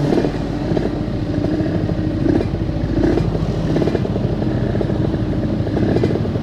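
Yamaha RX-King 135cc single-cylinder two-stroke motorcycle engine running steadily under way through an aftermarket locally made exhaust, a fast even crackle of firing pulses without any big rev change.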